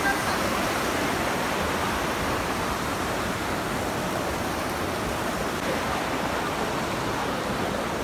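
Steady rush of a rocky mountain stream tumbling over boulders and small cascades.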